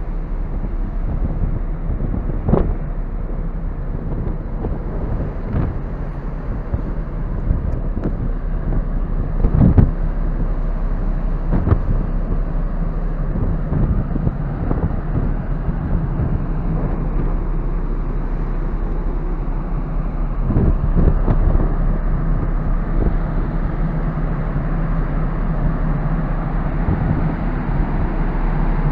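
Wind rushing over the microphone on the open deck of the Ogasawara Maru ferry under way, over the ship's steady low engine drone, with a few brief knocks.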